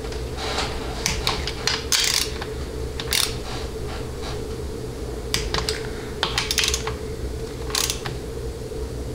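Torque wrench ratcheting and clicking in short groups of sharp clicks, a few seconds apart, as the 10 mm bolts on a 700R4 transmission's auxiliary valve body and accumulator are torqued down to about 98 inch-pounds, over a steady low hum.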